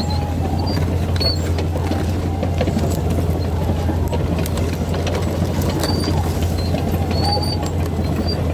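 Caterpillar D8 bulldozer's diesel engine running steadily at working revs, with clatter from the steel tracks and a few short high squeaks.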